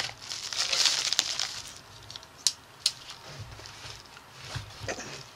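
Padded mailer envelope crinkling and rustling as it is handled and opened, with two sharp clicks about halfway through.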